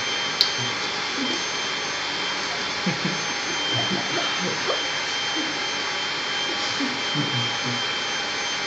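Vacuum cleaner running steadily: an even rushing hiss with a thin high whine over it. A short click about half a second in, and faint murmuring voices underneath.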